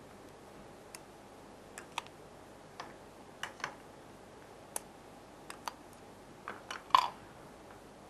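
About a dozen small, sharp clicks and taps scattered irregularly, the loudest about seven seconds in, from lipstick and makeup tools being handled while lipstick is applied.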